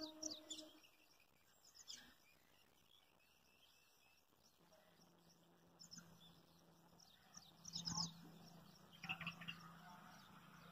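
Faint, scattered bird chirps in near quiet, with the tail of a train horn dying away at the very start and a faint low hum coming in about halfway through.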